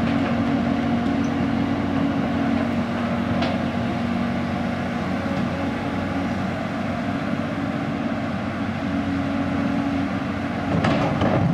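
Caterpillar 320D hydraulic excavator's diesel engine running steadily under working load as the boom and arm reach out and down, with a light knock about three and a half seconds in; the engine gets louder near the end.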